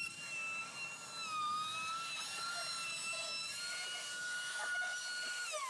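Black & Decker plunge router with a 20 mm flat bit running at a high whine while cutting a channel in the wooden sled base, its pitch wavering slightly as the bit takes load. Near the end it is switched off and the whine starts to fall in pitch as the motor winds down.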